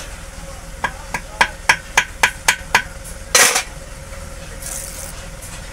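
A run of about eight light, ringing metal taps, three or four a second, then a short, louder metallic clatter. This is the handling and tapping of pistons, connecting rods and bearing caps being fitted into a six-cylinder diesel engine block.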